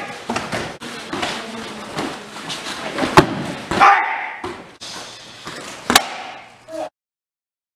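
Live sound of karate training on a padded mat: sharp slaps and thuds of strikes and falls, the loudest about three and six seconds in, with short sharp shouts. It cuts off abruptly about seven seconds in.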